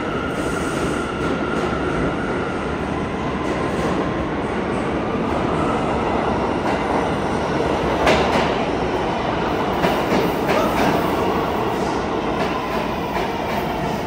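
A brand-new R211A New York City Subway train pulling into the station and running past along the platform: steady rail rumble with a whine that rises and falls in pitch, and a few sharp wheel clacks a little past the middle.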